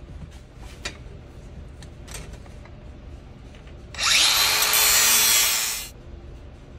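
Cordless angle grinder spinning up with a rising whine and grinding for about two seconds, starting about four seconds in, then switched off; a few light clicks of handling come before it.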